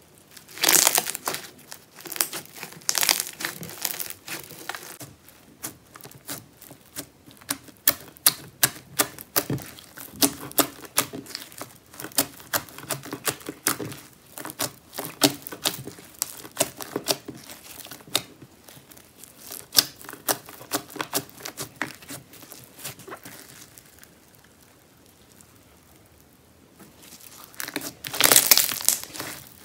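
Clear glue slime packed with fishbowl beads being squeezed, stretched and pressed by hand, giving dense crackling pops and crunches from the beads. Louder bursts come about a second in and again near the end, with a quieter spell shortly before the end.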